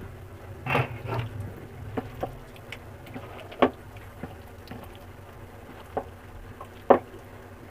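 Wet squelching as a hand kneads raw chicken pieces into thick egg-and-flour batter in a steel bowl, with a few sharper ticks at irregular moments.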